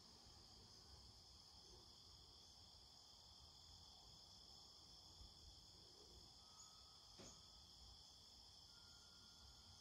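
Faint, steady chorus of crickets, a continuous high-pitched trill, with a single soft click about two-thirds of the way through.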